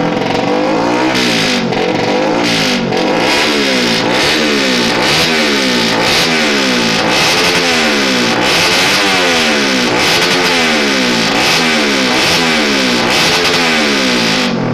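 Race-tuned Yamaha Jupiter MX single-cylinder four-stroke engine being free-revved over and over, the pitch climbing and dropping about once a second.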